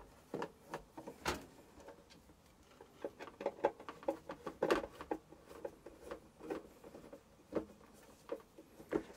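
Irregular clicks, taps and knocks of an air fryer's plastic casing and parts being handled and worked on with a screwdriver during disassembly, busiest around the middle.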